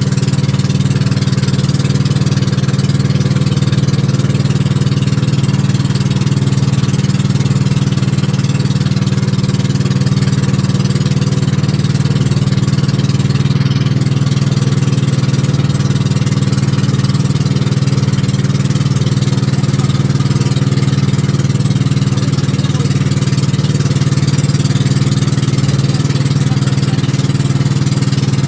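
Outrigger boat's engine running steadily at cruising speed, a constant low drone with the rush of water and wind over it.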